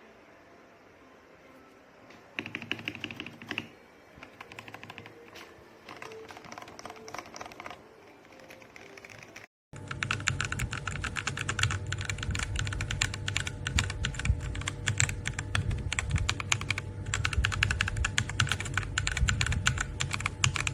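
Typing on a mechanical keyboard as a switch sound test: scattered, quieter keystrokes in the first half, then after a short break a louder, fast, continuous run of key clicks.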